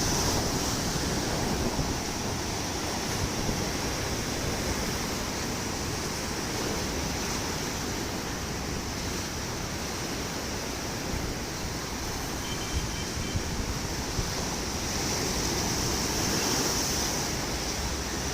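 Sea waves washing onto the shore in a steady surf, swelling louder about three quarters of the way through, with wind rumbling on the microphone.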